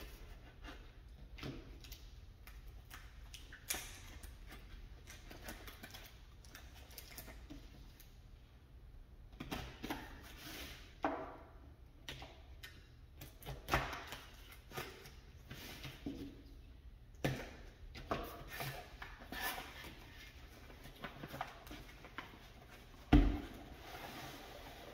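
A knife blade slitting packing tape on a cardboard box, with scattered scrapes, rustles and small taps of cardboard being handled, and one sharper thump near the end.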